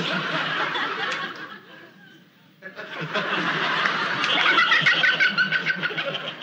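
Laughter in two bursts, a shorter one and then a longer, louder one after a brief pause.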